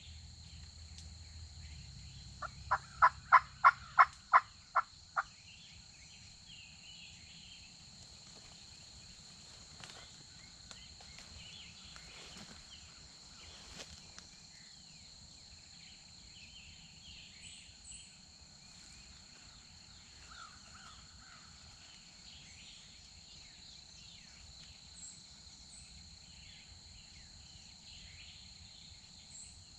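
A series of about nine loud turkey yelps in quick, even succession a few seconds in. Afterwards faint songbird chirps sound over a steady high insect drone.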